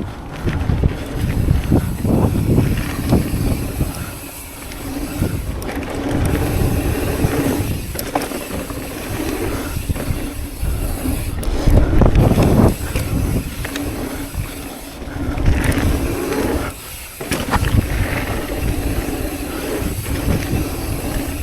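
Mountain bike being ridden over dirt trail: wind buffeting the chest-mounted microphone, with tyre rumble and knocks and rattles from the bike over bumps.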